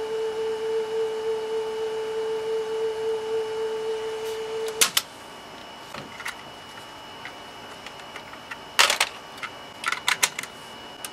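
Sanyo M9994 boombox cassette deck playing a steady pure tone pitched near A (about 440 Hz) through its loose speaker, the pitch read on a tuner app to check the tape speed. The tone cuts off suddenly about five seconds in with a click of the deck's mechanism. Sharp clicks and clunks of the cassette mechanism follow, in clusters near nine and ten seconds.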